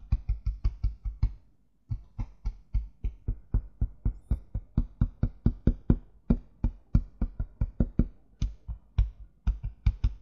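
Fingers tapping rapidly on the cone of a down-firing woofer in a two-chamber ported speaker cabinet, each tap giving a short, deep thump, about four or five a second, with a brief pause near the start.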